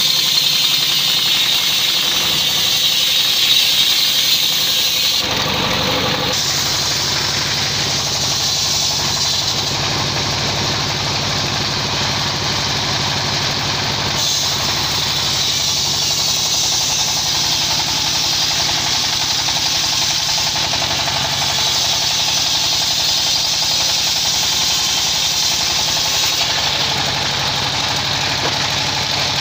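Engine-driven circular sawmill running steadily. For about the first five seconds the blade is cutting lengthwise through a teak log, which adds a high-pitched cutting noise over the engine. After that the engine and blade run on steadily without load.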